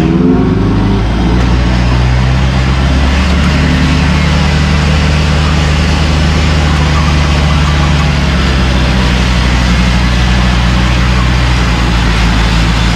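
Off-road 4x4's engine running steadily at low revs as the vehicle is winched slowly up a muddy track.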